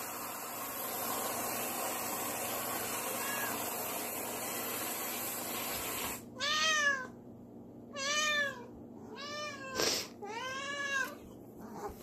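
Canned whipped cream spraying from its aerosol can with a steady hiss for about six seconds, then cutting off. A cat then meows several times, each meow rising and falling in pitch, with a sharp click among the meows.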